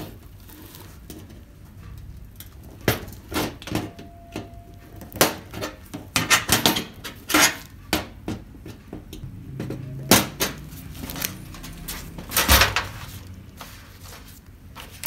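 Irregular clicks, knocks and clatter of pliers against the plastic locks that hold an LED TV's reflector sheet, as the locks are pressed down and released. A brief squeak comes about four seconds in, and the loudest knocks come about ten and twelve and a half seconds in.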